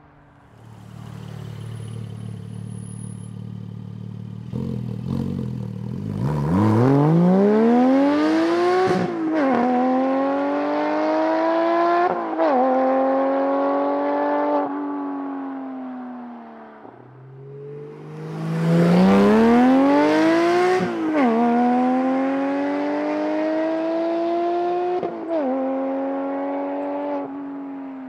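Porsche 718 GT4's 4.0-litre flat-six through a Soul Performance race exhaust, driven at full throttle in two pulls. Each time the engine note climbs steeply to high revs (near 8,000 rpm), drops sharply at an upshift, climbs again, drops at a second upshift, and then falls away as the throttle is lifted. The first pull starts about five seconds in after a low steady run, and the second about eighteen seconds in.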